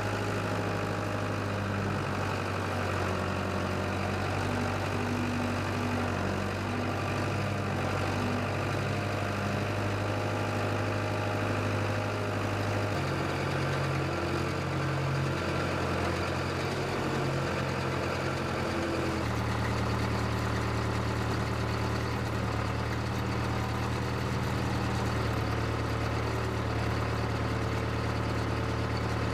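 Case 580CK backhoe engine running steadily, its note changing abruptly twice.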